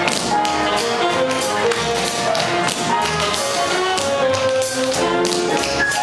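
Tap shoes striking a wooden dance floor in quick rhythmic runs of taps, over a live big band with saxophones and trumpet.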